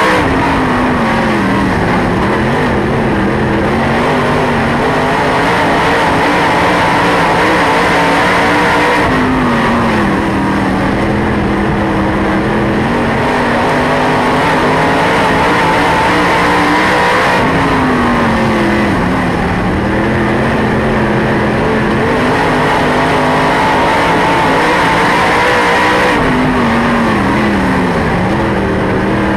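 Dirt late model race car's V8 engine, heard from inside the car, running hard at speed. Its pitch dips and climbs back up about every eight or nine seconds, over a steady noise of wind and dirt.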